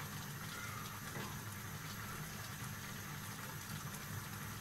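Chopped tomatoes simmering in a saucepan on a gas burner: a steady bubbling with faint scattered pops over a low steady hum.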